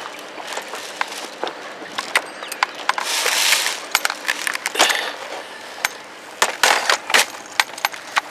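Airsoft guns firing in scattered sharp snaps and clicks at irregular intervals, with a short hiss about three seconds in and a quick run of shots near the end.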